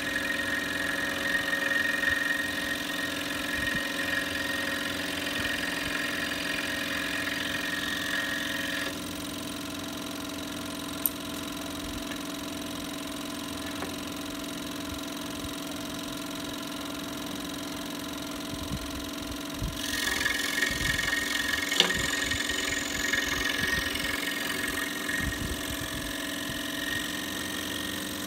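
Electric scroll saw running steadily with its blade cutting through small pieces of wood. The cutting sound drops away about a third of the way in while the saw runs on unloaded, then returns for the last third.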